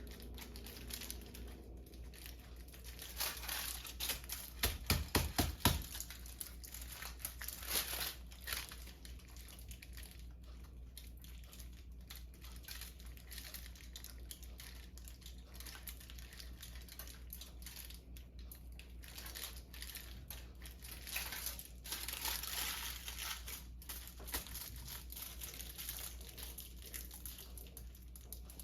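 Crinkling wrapper being rolled around an embutido meatloaf log and twisted closed at the ends, in irregular crackles with a louder flurry and a few bumps about five seconds in.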